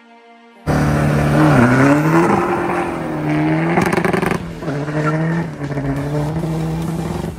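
Tuned VW Golf V 2.0 TDI diesel engine at full throttle, launching from the start and pulling hard down the strip. It starts abruptly a little under a second in; its pitch dips and then climbs, with brief breaks at gear changes about four and a half and five and a half seconds in.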